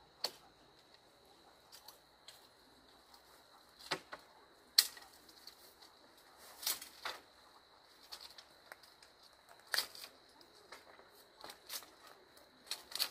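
Scattered sharp clicks and taps, about a dozen at irregular spacing, over a faint steady high-pitched tone.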